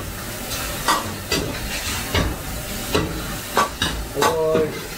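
Minced meat sizzling in a steel wok while a metal ladle stirs it, with repeated short scrapes and knocks of the ladle against the pan over a steady frying hiss.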